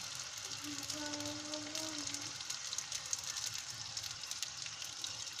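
Qatlama (folded dough pastries with a meat filling) frying in hot oil in a pan: a steady sizzle with fine crackling throughout.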